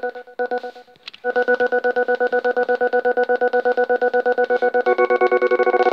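Casio SK-1 keyboard holding a drone note, chopped into a pulsing tremolo by a homemade breadboard LFO circuit. The sound drops out briefly near the start, then pulses evenly and gradually faster as the LFO rate knob is turned. A second, higher note joins near the end.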